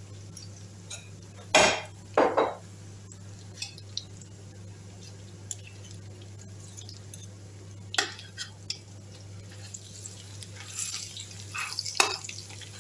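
Metal spoons knocking and scraping against a large stainless steel pot while egusi is stirred and turned. The loudest knocks come about a second and a half and two seconds in, with more near eight seconds and near the end. A steady low hum runs underneath.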